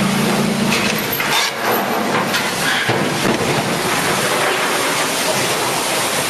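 Ship's hull dropping sideways off the launch ways into the water, a loud continuous rush and crash of displaced water and spray. A low steady drone stops about a second in.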